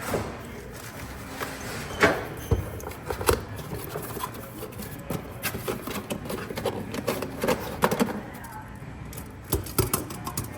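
Irregular knocks, clicks and clatter of objects being handled, with a sharper knock about two seconds in and a quick run of clicks near the end.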